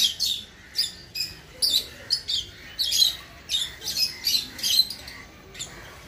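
Rosy-faced (peach-faced) lovebirds calling: a run of short, high-pitched chirps, about two a second, that stops shortly before the end.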